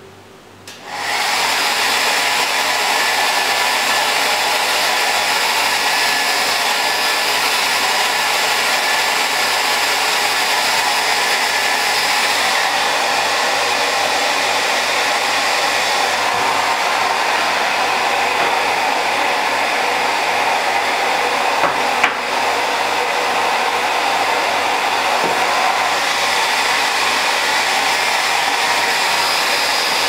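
Small handheld hair dryer switched on about a second in, then blowing steadily at a poodle's coat, with one brief click about two-thirds of the way through.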